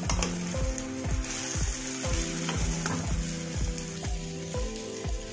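Background music with a steady beat of about three a second, over the sizzle of sponge gourd slices and masala frying in an oiled kadhai as a wooden spatula stirs them.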